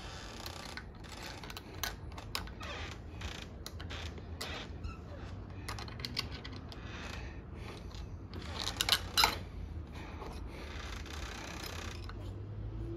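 Small clicks, taps and rattles of smart deadbolt parts being handled and fitted into a door, with a quick cluster of louder clicks about nine seconds in.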